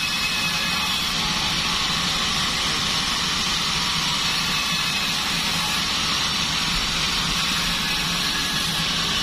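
Band sawmill running steadily: an even, continuous hiss over a low hum, with no break or change in level.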